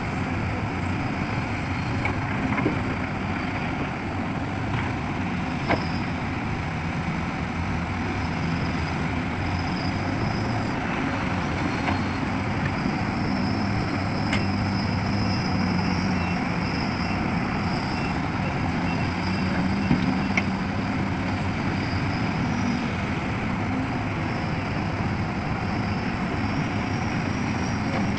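Heavy diesel machinery, an excavator and dump truck, running steadily, with a thin higher whine that comes and goes and a few sharp clicks or knocks.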